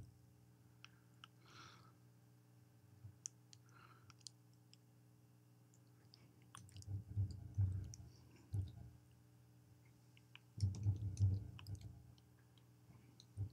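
Faint, scattered clicks of computer keys being pressed. Two clusters of low, muffled bumps come in about halfway through and again near the end.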